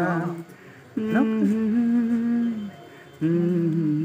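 A man humming a song's melody unaccompanied in long, steady held notes, with short breaths between them; the middle note begins with a quick upward slide.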